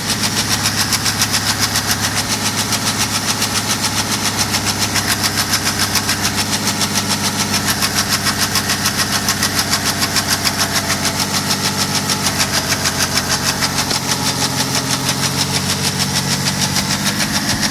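BMW N57D30 3.0-litre straight-six diesel idling after a cold start, with an even, rapid knock running steadily through its idle. This is the knocking noise the owner is showing; its cause is not given.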